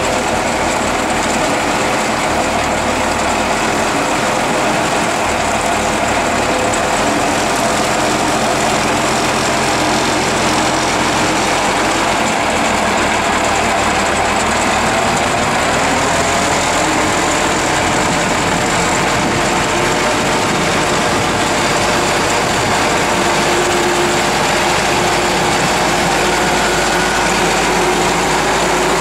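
Engine of a four-wheel Ardco Rolligon all-terrain vehicle idling steadily.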